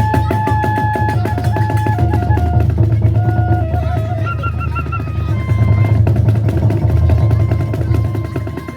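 Kagura hayashi ensemble playing: rapid, dense taiko drum strokes with a held, stepping flute melody over them. The music eases off just before the end.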